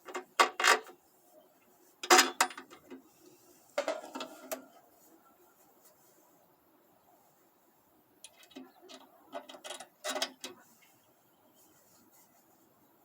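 Small hard objects being handled: several bursts of sharp clicks and clatters with quiet pauses between them.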